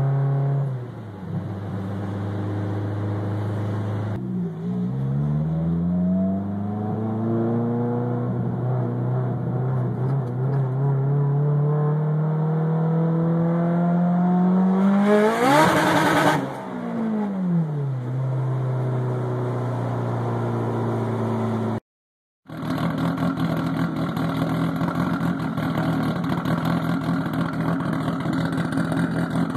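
Mitsubishi Lancer Evolution's turbocharged 4G63 four-cylinder through a 4-inch straight-pipe exhaust, heard from inside the cabin while driving: the engine note rises steadily under acceleration, peaks with a brief burst of noise about 16 s in, falls away and settles to a steady cruise. After a short break the same exhaust idles warm at the tailpipe, a steady, rough engine note.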